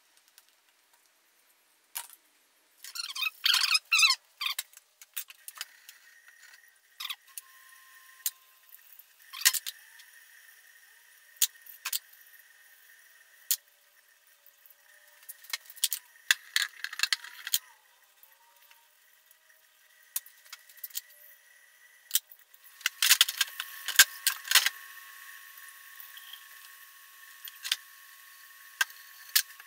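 Steel vise parts clinking and rattling against each other and against a plastic tub, in scattered knocks, with busy stretches of clatter about three seconds in and again near the end.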